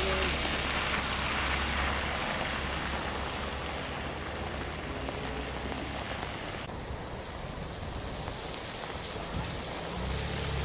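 BMW E46 M3's straight-six pulling away over a wet road, its low engine note fading about two seconds in and leaving an even hiss of rain and wet tarmac. Near the end the low engine note of a second car, a BMW M4, comes in and grows louder as it approaches.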